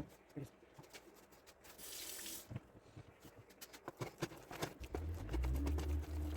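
Wooden spoon stirring and knocking through stiff choux puff dough in a saucepan as eggs are beaten in, a run of irregular clicks and knocks. A brief hiss comes about two seconds in, and a low hum starts about five seconds in.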